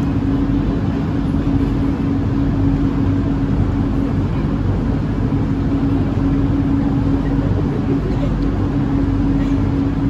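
Steady droning hum of an underground station platform's ventilation, with a constant low tone and no change in level.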